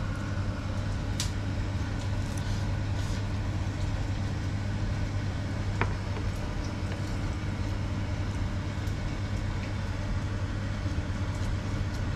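A steady low mechanical hum, like a fan or appliance motor, with a few light clicks of chopsticks against dishes, the sharpest about six seconds in.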